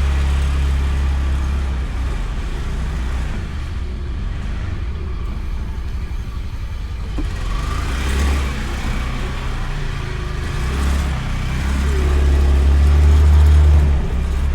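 A motorbike being ridden in traffic, heard through a microphone inside the rider's helmet: a steady deep rumble of wind and engine. The rumble swells for a couple of seconds near the end, then drops off suddenly.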